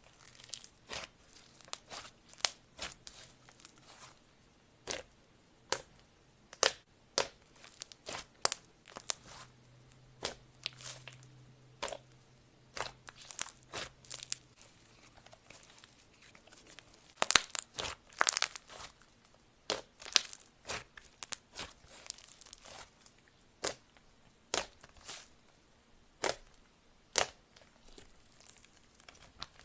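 Crunchy slime being crushed, giving a long series of irregular sharp crackles and pops, bunched more densely in places.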